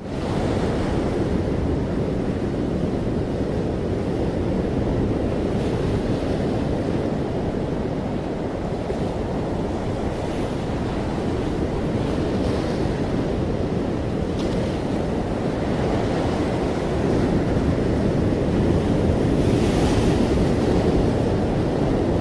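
A steady, loud rushing noise like surf or wind, mostly deep, swelling slightly over the last few seconds.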